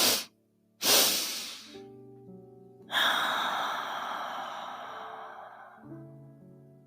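A woman breathing a physiological sigh: a short sniff in through the nose, then a second, longer inhale on top of it. About three seconds in comes one long, slow exhale that fades away over nearly three seconds. Soft background music plays underneath.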